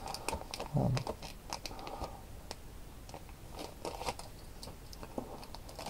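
Clear plastic packaging bag crinkling and rustling as it is handled, with scattered small crackles and clicks.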